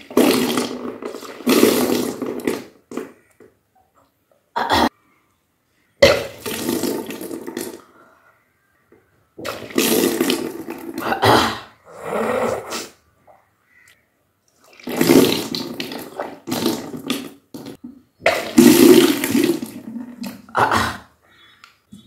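Water being vomited back up from a person's mouth in gushes that splash down, with retching, in about five bursts of two to three seconds separated by silent pauses. This is kunjal kriya, the yogic cleanse of drinking about two litres of water at once and then bringing it all back up.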